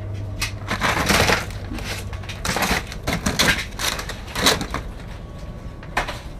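Plastic blister packs of fishing lures crinkling and clattering against each other and the cardboard as a hand rummages through a box of them, in irregular bursts.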